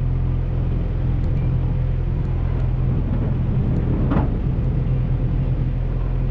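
Toyota rock crawler's engine running steadily at low speed as the truck crawls forward, with a short higher sound just after four seconds in.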